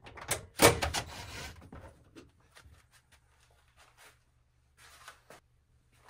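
Cordless drill-driver briefly running to back out a Phillips screw holding the washing machine's top panel, about half a second to a second and a half in, followed by a few faint clicks and knocks of handling.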